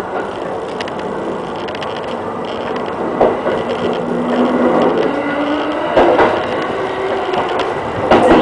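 E217 series electric commuter train running, heard from inside the cab: a steady rumble of wheels on rail with low humming tones that shift, and sharp clacks about three seconds in, six seconds in and near the end as the wheels cross rail joints or points.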